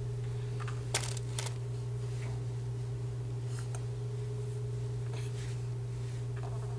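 Steady low hum with a fainter steady tone above it, and two short clicks about a second in, followed by a few faint soft ticks.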